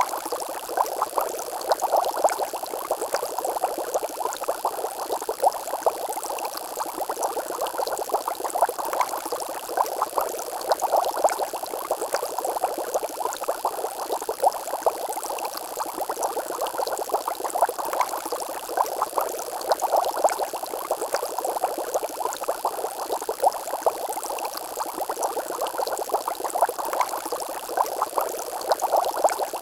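Water bubbling steadily: a dense, continuous run of small pops and gurgles.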